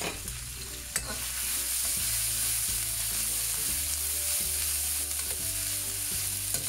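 Stir-fry sizzling in hot oil in an iron wok while a metal spatula stirs and turns the pieces. There is a steady sizzle that gets louder about a second in, with a sharp spatula scrape or knock on the wok at that point.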